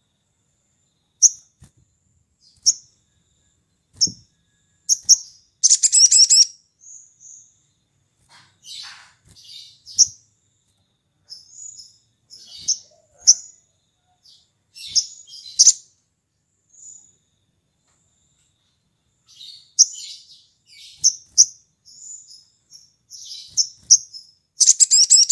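Male olive-backed sunbird calling: sharp, high chirps at irregular intervals, broken by a fast rattling trill about six seconds in and another near the end.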